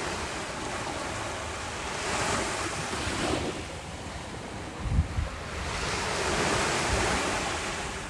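Ocean waves washing in, swelling twice. Wind buffets the microphone with a brief low thump about five seconds in.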